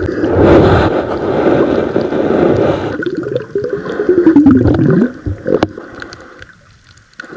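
Water gurgling and churning around a camera microphone held in the sea while snorkeling, with wavering gurgling tones. It fades away about five seconds in.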